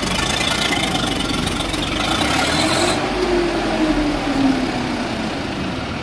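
Swaraj 744 XT tractor's diesel engine running hard under load while towing a stuck truck. Its pitch rises and then falls again from about two seconds in.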